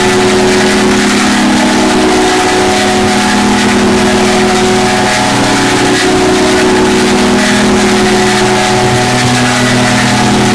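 Loud, heavily distorted and clipped audio effect: a harsh, unbroken wall of noise over several steady droning tones that shift a little in pitch now and then.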